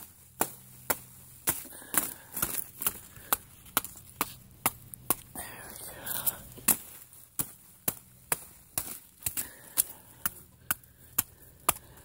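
Elephant ear stalks being hacked down: a run of sharp chopping strikes, about two a second, with a brief rustle of the big leaves about halfway through.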